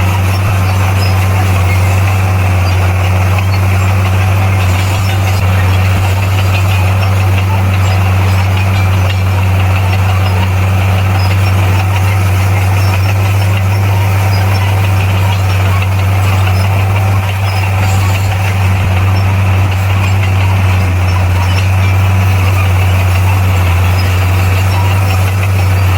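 Bulldozer's diesel engine running steadily at an even speed, a constant low drone.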